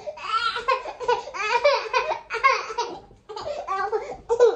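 Baby boy laughing in several high-pitched bursts with short breaks between them.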